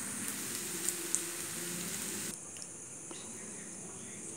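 Faint, even sizzling hiss from cooked macaroni pasta in a hot aluminium kadai, with the flame already off, for about two seconds; then it cuts off abruptly to quieter room tone.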